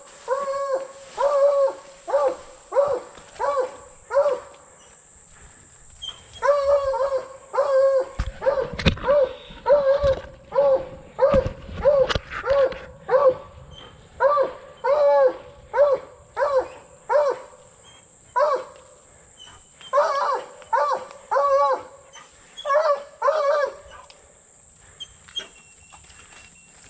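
Blood-tracking dog barking steadily at a wounded buck it has caught and is holding at bay, about one and a half barks a second with short pauses. Crashing in the brush for a few seconds about a third of the way in.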